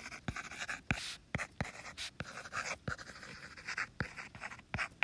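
Stylus tapping and scratching on a tablet screen as words are handwritten: sharp taps about three a second, with short scratchy strokes between them.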